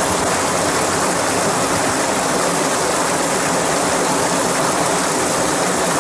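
Creek water rushing steadily over small cascades and riffles.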